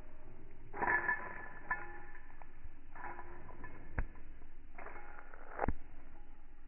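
Pigeon pecking and eating seeds, heard slowed down: four separate bursts of crackling, two of them with a sharp click, about four and five and a half seconds in.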